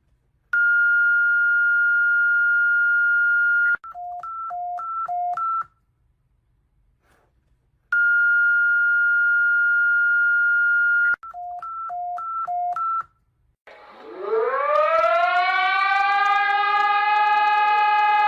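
Emergency alert alarm tones: a long steady beep of about three seconds, then a quick run of beeps alternating between a high and a low pitch, and the whole pattern plays twice. It is followed by a siren that winds up in pitch and holds a steady wail.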